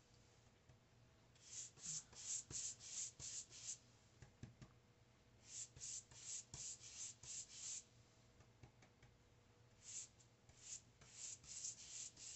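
Faint strokes of a wide paintbrush applying acrylic paint to paper, in three runs of quick, short scratchy strokes, about three a second.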